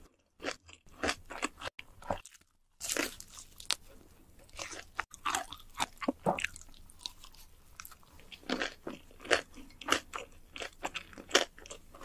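Close-miked crunching and chewing of crisp fried food: irregular sharp crunches with softer chewing between them. The sound drops out briefly twice in the first three seconds.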